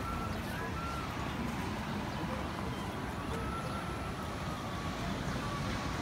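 Steady low rumbling background noise, with faint thin high tones now and then.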